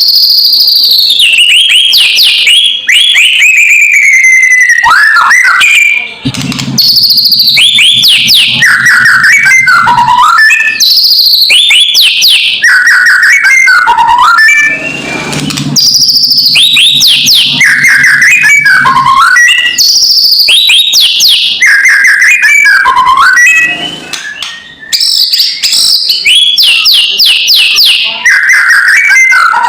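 White-rumped shama giving its harsh 'kretekan' rattle: quick bouts of rapidly repeated, sweeping chattering notes mixed with whistled phrases, loud and repeating with short breaks. This is the agitated call used as a lure to provoke another shama. A faint low hum sits underneath twice.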